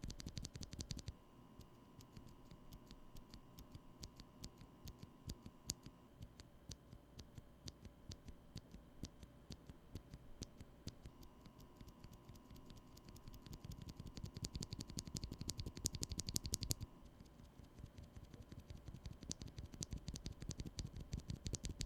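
Faint mechanical keyboard switches clacking: a run of quick, uneven clicks, sparse at times and coming thick and fast in spells, over a faint steady high whine.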